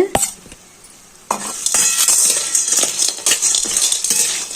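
A spoon stirring and scraping in a kadhai of hot ghee with rock sugar, with sizzling and quick metal clinks, starting about a second in.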